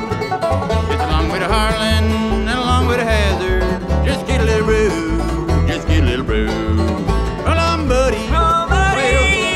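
Bluegrass band playing live, with banjo and guitar picking and sliding melody lines over a steady bass line.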